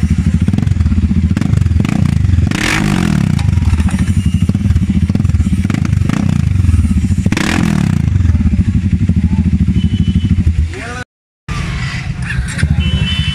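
Bajaj Dominar 400's single-cylinder engine running through an aftermarket carbon-fibre muffler held to the exhaust pipe by hand, idling with a steady pulsing beat and revved up twice. The sound cuts out briefly near the end.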